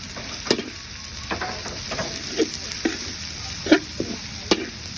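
Food frying in hot oil with a steady sizzle, and a utensil knocking against the pan at irregular intervals, about six times.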